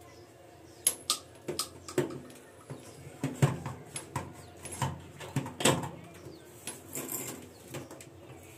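Irregular clicks and knocks of a plastic-cased Crompton instant water geyser being handled and pushed onto its wall mounting, with its hose fittings touched underneath. The knocks start about a second in and thin out near the end.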